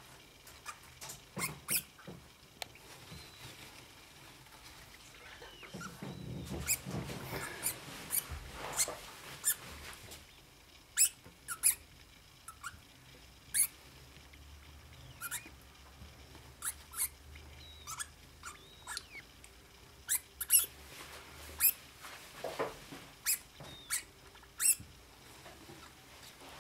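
Degus moving about in a nest of shredded paper: rustling paper with many short, sharp crackles scattered throughout, and a few seconds of louder, fuller rustling about a quarter of the way in.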